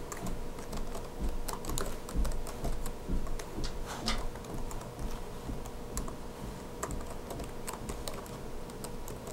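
Typing on a laptop keyboard: a quick, irregular run of key clicks, with a few louder taps now and then.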